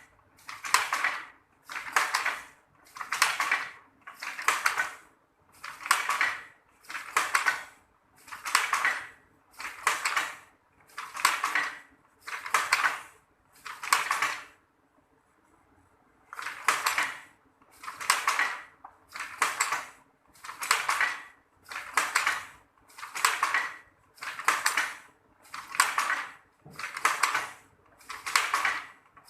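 Traditional manual weaving loom working at a steady rhythm, a rattling wooden clatter about once every 0.8 seconds as each weft pass is made and beaten in. It stops for about two seconds a little past halfway, then resumes at the same pace.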